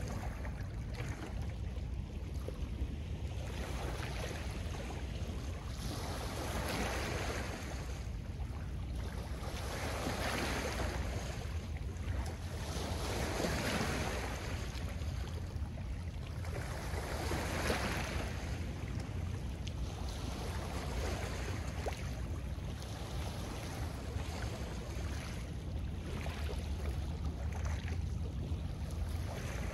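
Small Lake Ontario waves washing onto a pebble beach, each wash swelling and fading every three to four seconds over a steady low rumble.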